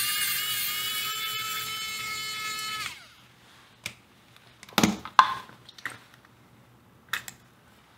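Cordless electric precision screwdriver running with a steady high whine for about three seconds, backing out a screw in a small transistor radio, then winding down in pitch as it stops. A few light clicks and knocks follow as the radio and its case are handled.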